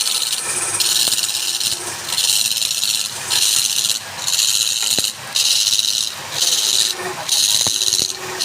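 Wood being cut or abraded on a lathe in repeated rasping strokes, each about a second long with short breaks, and a few sharp clicks.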